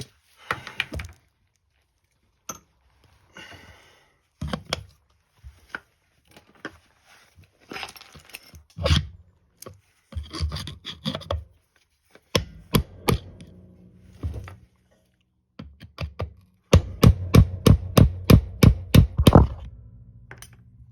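Metal-on-metal knocks and scraping from hammering on a rusted-on front wheel bearing of a John Deere 110 garden tractor to drive it off the spindle. Scattered single blows and scrapes give way near the end to a fast run of about a dozen hard strikes.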